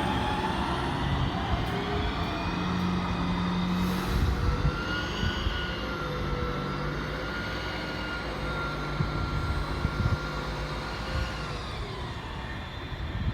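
City street traffic: a large vehicle running with a held whine whose pitch drops near the end, with a few low knocks.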